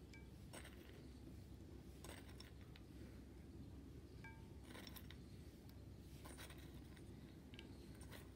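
Near silence: a low room hum with a few faint, short ticks and clinks spread through it, as pieces of dry fruit are dropped onto raita in a glass dish.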